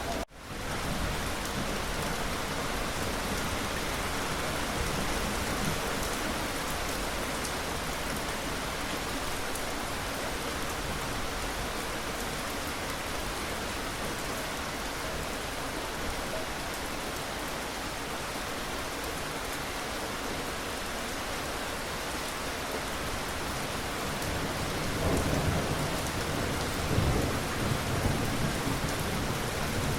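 Steady rain falling in a continuous hiss, with low rolls of thunder rumbling a few seconds before the end. The sound drops out for a moment right at the start.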